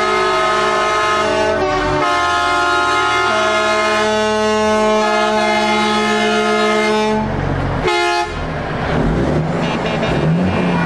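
Truck air horns blaring a sustained multi-note chord, the notes shifting a few times, then cutting off about seven seconds in, with one short blast just after. A truck engine follows, revving up in short rising pulls as it drives off.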